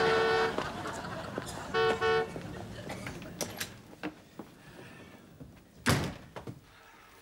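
A car horn sounds over street traffic: a long blast ending about half a second in, then two short toots about two seconds in. Near six seconds a front door is pushed shut with a single loud thud.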